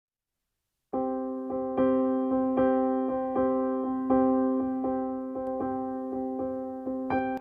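Background music: a keyboard plays a repeating run of notes over a held note, starting about a second in.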